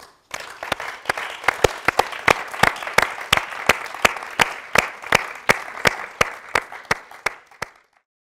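Applause, with sharp, close handclaps standing out above the rest; it dies away near the end.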